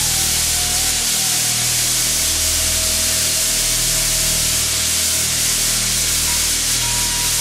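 Hue-Tronic optical color sorter running on a stream of chickpeas: a steady, loud hiss over a low machine hum. A faint thin tone drifts slowly in pitch.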